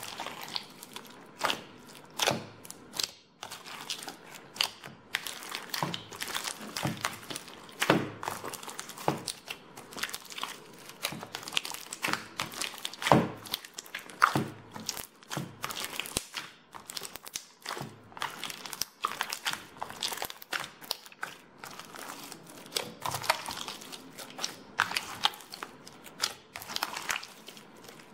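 Hands squeezing and kneading a jiggly water slime topped with a crust of small beads and glitter, making irregular crackles and pops.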